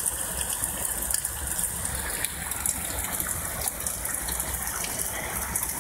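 Heavy rain pouring down steadily, a dense even hiss with frequent sharp ticks of drops striking close by.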